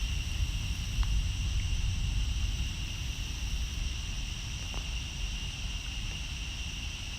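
A chorus of night insects keeps up a steady, high-pitched trill over a constant low rumble, with a couple of faint ticks.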